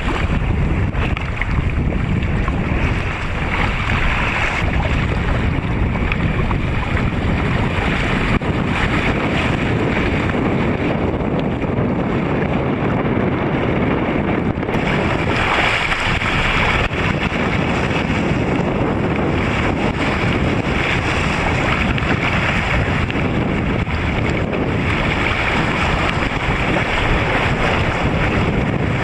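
Force 5 wind buffeting the microphone over the rush and splash of waves around a sea kayak sailing fast downwind: a steady, loud rush of wind and water.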